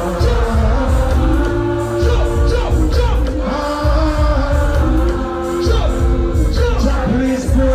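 Live band music from a concert sound system, with a heavy, pulsing bass line and sustained sung melody lines.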